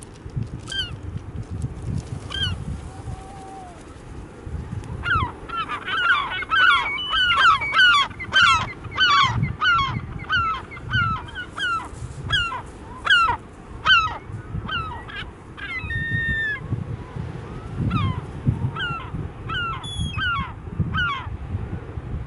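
Herring gulls calling: short, falling yelping calls, scattered at first, then a loud, rapid run of calls from about five seconds in for some ten seconds, then scattered again. A steady low rumble runs underneath.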